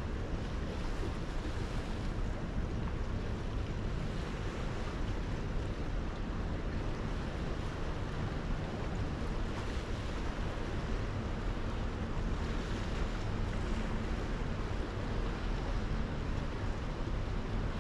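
Steady rush of sea and wind from a cruise ship at sea, with wind buffeting the microphone and a faint low hum underneath.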